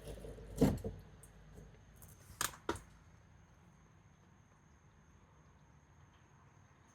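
A dull knock, then two sharp clicks a moment apart, like tools or parts being handled, then only faint steady background.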